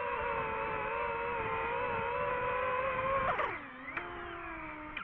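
DJI FPV drone's propellers whining steadily, then about three seconds in the pitch drops quickly as the drone sets down on a car roof and the motors slow, with a short knock at touchdown.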